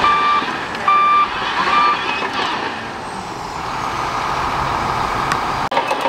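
Heavy machine's engine running steadily while its backup alarm beeps three times in the first two seconds; the last beep is the shortest. The sound drops out for an instant near the end.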